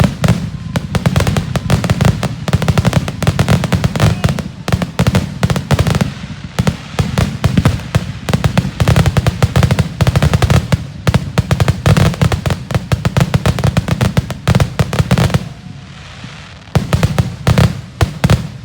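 Fireworks grand finale: a rapid barrage of overlapping aerial shell bursts, with dense bangs and crackle. The bangs ease for about a second around three-quarters of the way through, then resume near the end.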